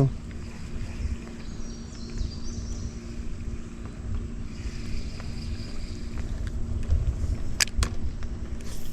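Electric trolling motor on a small fishing boat humming steadily, over a low rumble of wind. Two sharp clicks come close together near the end.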